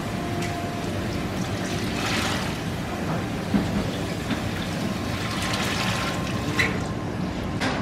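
Steady background noise of a restaurant counter: a low hum with a water-like hiss and two small clinks, about three and a half and six and a half seconds in.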